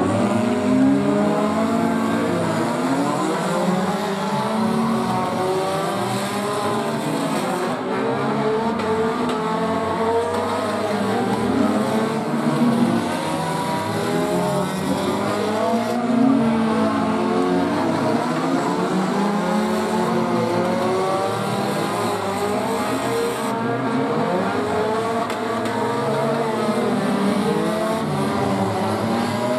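Several mini figure-8 race cars' engines revving at once as they lap, their overlapping engine notes rising and falling continuously.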